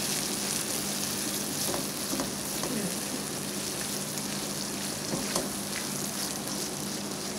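Sweet potato halwa (grated sweet potato with sugar, milk and ghee) sizzling steadily in a pan on a low flame as the sugar melts in, stirred with a spatula, with a few light scrapes of the spatula on the pan.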